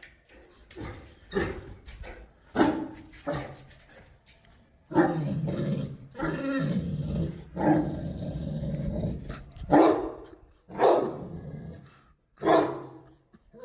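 A dog barking repeatedly in sharp, separate barks, with two longer drawn-out stretches of sound in the middle.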